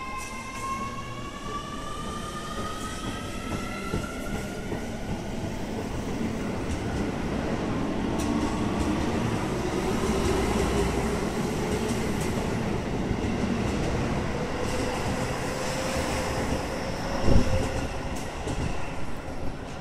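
Keio 7000 and 9000 series electric commuter train pulling out of the station, its motors' whine rising in pitch as it picks up speed. The cars rumble past on the rails, with one loud thump about 17 seconds in.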